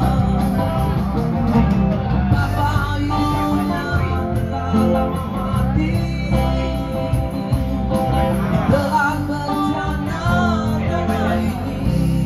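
Man singing into a handheld microphone, amplified through a PA, over loud backing music.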